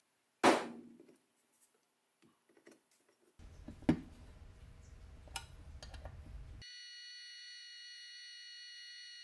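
A sharp knock as a metal searing iron for docking lambs' tails comes down on a rubber pad, followed by faint clicks and taps of small metal parts being handled over a low hum. Near the end a steady, high-pitched electronic tone like an alarm sounds.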